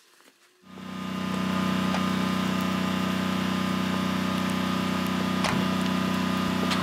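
Vehicle engine running at a steady speed with an even hum, fading in a little under a second in; a single short click about five and a half seconds in.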